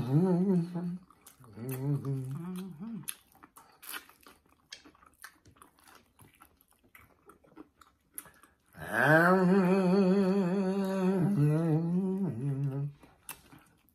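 A person humming with their mouth closed: short hums in the first few seconds, then one long, wavering hum near the end. Between them come small wet chewing and mouth clicks of someone eating crispy fried food.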